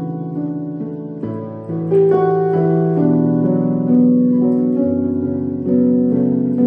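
Background piano music, a melody of sustained notes changing one after another.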